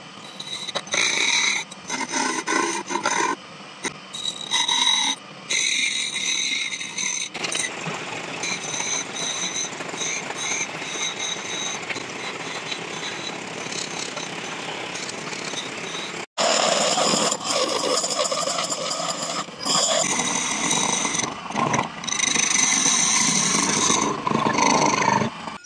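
Wood lathe spinning a wooden goblet while a hand-held chisel cuts it, in uneven scraping bursts with a thin high whine at times. After a sudden break about two-thirds of the way through, the chisel hollows out the inside of the cup.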